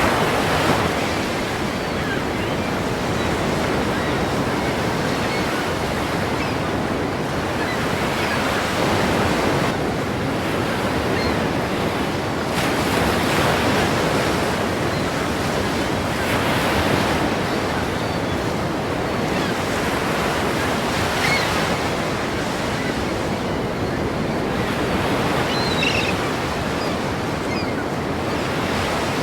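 Ocean waves crashing and washing in continuously, the surge swelling and easing every few seconds, with wind on the microphone.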